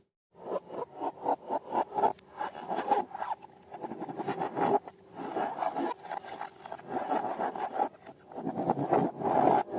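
Slime being worked by hand: dense, rapid crackling, squishing and scraping, after a split-second dropout at the very start.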